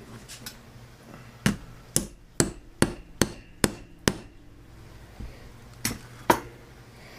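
Ball-peen hammer tapping a steel ball bearing down onto a dead center's shaft, each strike a sharp metallic knock with a short ring: seven quick taps at about two a second, then a pause and two more near the end.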